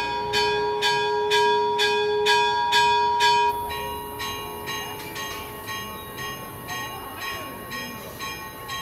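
A church bell rung repeatedly, about two strokes a second, each stroke ringing on over the next. About a third of the way through it becomes quieter.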